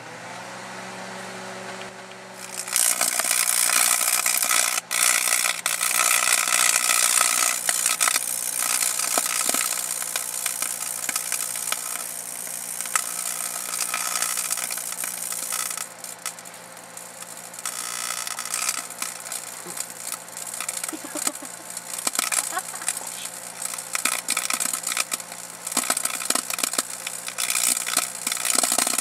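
Microwave oven humming as it starts cooking, then from about three seconds in a loud, continuous crackling and popping, like sparks arcing off the metal parts of an Edwards fire alarm pull station inside the oven, easing off for a few seconds past the middle.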